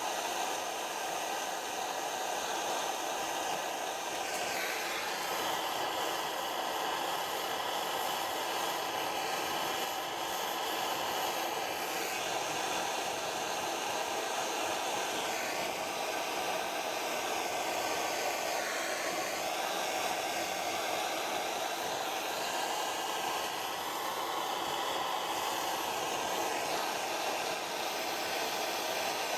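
Gas blowlamp flame burning with a steady hissing rush while heating a joint for silver soldering. Its tone shifts a little now and then.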